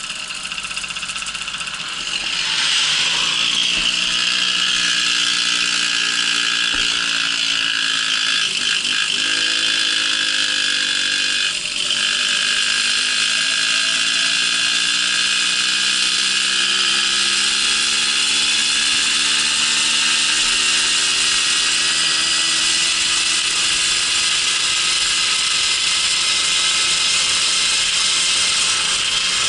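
Babetta moped's small two-stroke engine running under way with a buzzing, rattling note. It gets louder about two seconds in and holds steady, apart from two brief dips and recoveries in pitch near the middle.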